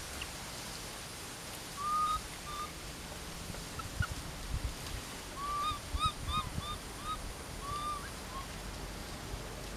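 An animal giving short, arching chirp-like calls: a couple about two seconds in, then a quick run of about six past the middle and one more soon after. Soft low thumps from movement in the undergrowth sit under them.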